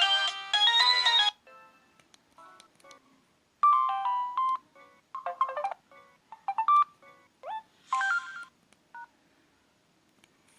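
Samsung J700V phone speaker playing its preloaded ringtones. A chime-like run of chords ends about a second in. After a short quieter gap, another tone plays as a string of short electronic notes and blips, with a rising glide and a brief hiss about eight seconds in.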